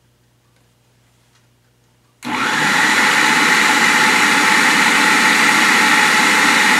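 Electric food processor switched on about two seconds in, then running steadily, blending basil and garlic into pesto while oil is added.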